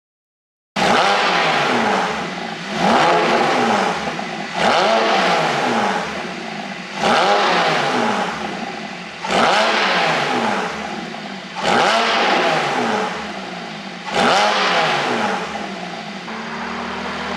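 Porsche 718 Boxster GTS 4.0's flat-six engine being blipped seven times, starting suddenly about a second in: each blip rises sharply and falls back slowly, with exhaust popping and crackling on the overrun from its pop-sound ECU tune. It settles to a steady idle near the end.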